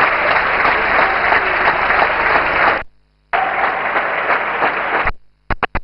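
Crowd of spectators applauding steadily. The sound cuts out abruptly for about half a second around three seconds in, and again near the end with a few brief stutters.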